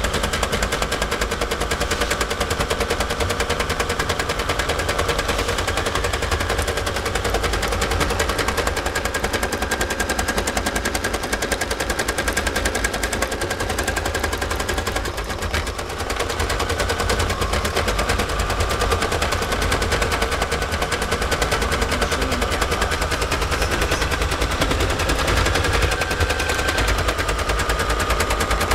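Bernina Artista 200 computerised sewing machine stitching out an embroidery through its embroidery module, the needle going in a fast, even run of clicks. The run briefly dips about halfway through.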